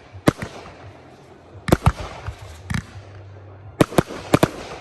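Fireworks display: a string of sharp bangs, about eight, with crackling between them, and several bangs in quick succession near the end.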